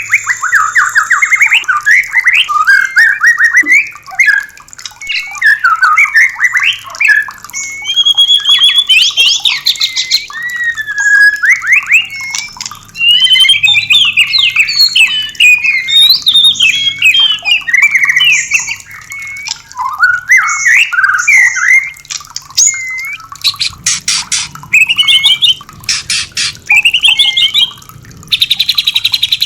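White-rumped shama singing a fast, varied song of whistled phrases, trills and harsh notes, with a run of dry rattling notes about three-quarters of the way through.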